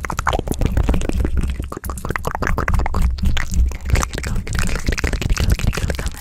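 Fast ASMR hand movements right at a condenser microphone: a dense run of quick clicks and taps over a steady low rumble from hands and air brushing close to the mic.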